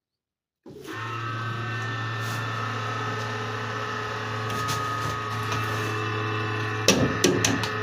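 INVT inverter powered up for a test run after its cooling fans were replaced: a steady electrical hum with cooling fans running and a few steady high whining tones, starting abruptly about a second in. A few sharp knocks near the end.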